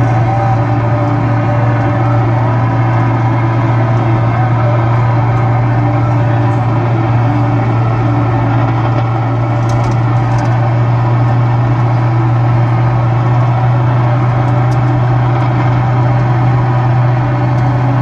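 Static from a car's AM radio: a loud steady hiss over a low hum, with a few faint crackles about ten seconds in and again a little later. The crackles are lightning discharges picked up by the radio.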